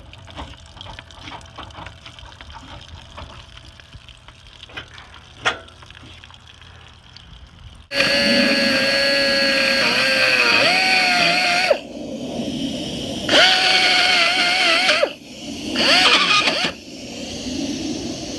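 Faint ticking, then about eight seconds in a power tool starts abruptly and runs in three bursts. Its whine sags and wobbles in pitch as it bites, gouging out the corroded holes in a boat hull.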